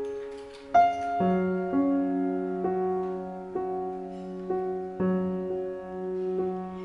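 Background piano music: slow, sustained notes, a new note struck about once a second.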